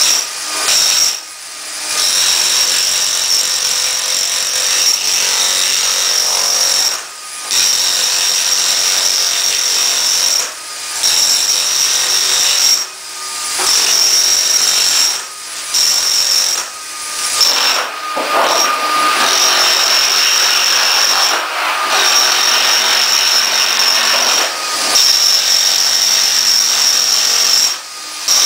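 Power tool breaking up a ceramic tile floor. It runs steadily with a high whine and stops briefly every two to four seconds before starting again.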